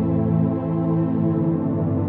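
Ambient background music: sustained synthesizer pads with slowly changing chords.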